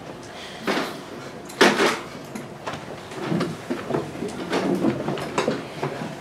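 Scattered knocks and clatter in a room, the loudest about one and a half seconds in, followed by a run of smaller taps.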